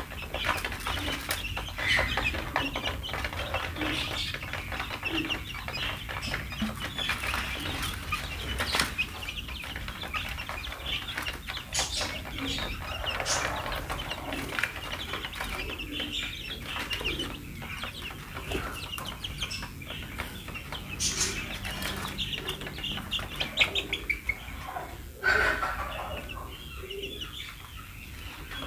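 A brood of fifteen-day-old chicks peeping continuously while pecking grain from a tray feeder, with many small sharp taps mixed in among the peeps.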